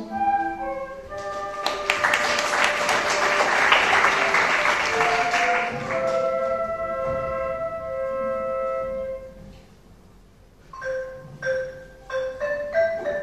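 An instrumental ensemble plays soft sustained notes, with a round of clapping over the music from about two seconds in to about six. Near the end the music thins to single struck notes.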